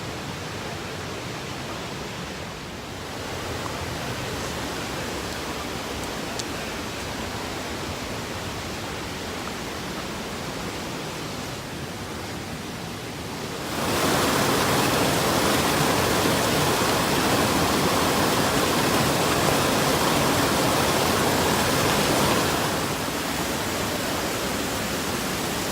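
Steady rushing of a waterfall and its creek. It suddenly becomes much louder about halfway through, then drops back a little near the end.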